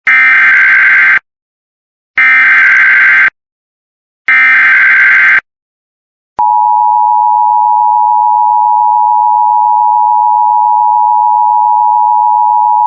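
Emergency Alert System header for a severe thunderstorm warning: three bursts of SAME digital header tones, each about a second long and about two seconds apart. After a short gap, about six seconds in, the steady two-tone EAS attention signal begins and holds.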